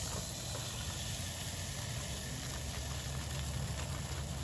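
A steady low mechanical hum, like a motor running, with faint sizzling and light ticks as chopped vegetables are tipped into a hot pot of butter and flour.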